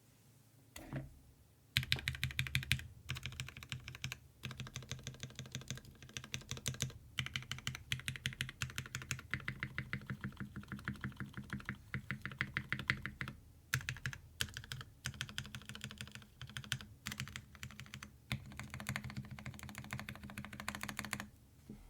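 Fast typing on a Tsukuyomi custom mechanical keyboard with lubed, filmed OA switches on an FR4 half plate and GMK keycaps. Rapid keystrokes run in quick runs with a few short pauses, starting about two seconds in after a single knock and stopping just before the end.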